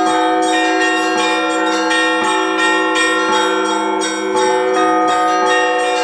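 Orthodox church bells being rung together: several bells struck in a quick, steady rhythm, their tones ringing on over one another above the sustained hum of a larger bell.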